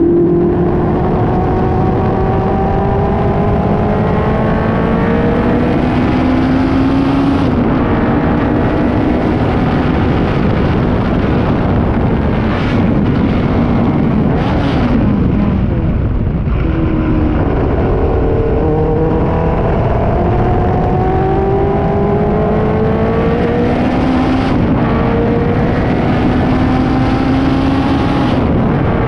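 Racing car engine heard onboard at full throttle, its pitch climbing steadily and dropping at each upshift. About halfway it falls away under braking with a few short sharp blips, then pulls up through the gears again.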